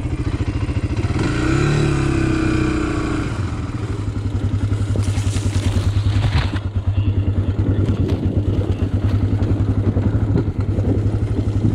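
Single-cylinder Honda ATV engine idling, with a short rise in revs a second or two in and a brief scrape or rustle about halfway, then settling back into a steady idle.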